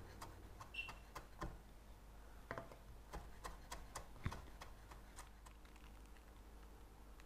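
Chef's knife chopping fresh parsley on a wooden cutting board: a run of faint, irregular knocks of the blade on the board, thinning out about five seconds in.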